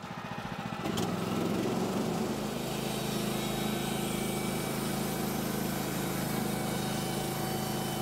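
Woodland Mills HM130 Max band sawmill running. Its gas engine comes up to speed in the first second, then runs steadily under load as the band blade cuts through a stack of boards, halving them lengthwise.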